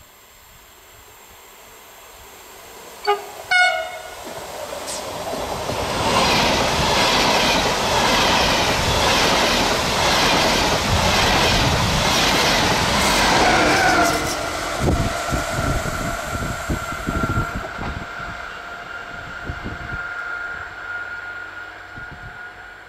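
ÖBB Railjet express train: two short horn blasts from the approaching locomotive about three seconds in, then the train passes at speed with a loud rush of wheels on rail. As it draws away, the wheels click over rail joints and switches, and a steady high whine lingers.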